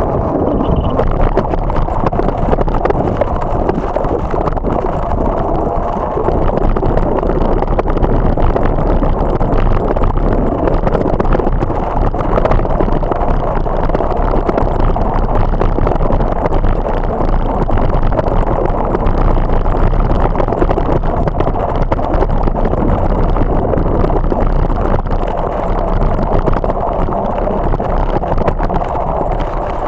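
Steady rushing rumble of wind buffeting the microphone and bike tyres rolling, first over pavement and then over dirt and gravel, while riding.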